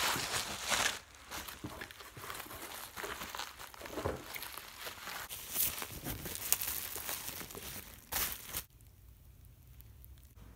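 Plastic bubble wrap crinkling and rustling in irregular bursts as books wrapped in it are handled, stopping shortly before the end.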